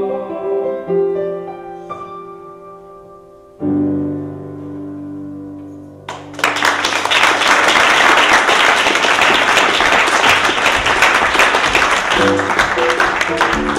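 Solo piano playing the last chords of a song, ending on a low chord that is held and fades. About six seconds in an audience breaks into loud applause that fills most of the rest. Near the end new piano notes start under the thinning clapping.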